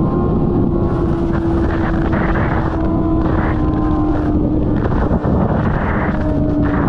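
Sport motorcycle engines running loudly, swelling every second or so as the throttle is worked, over a steady engine tone that slowly drops in pitch.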